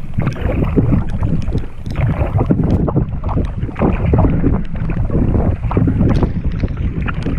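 Muffled, steady wind and water noise from a canoe being paddled through choppy lake water in the rain, picked up by a GoPro microphone wet with water. It is dotted with many small ticks.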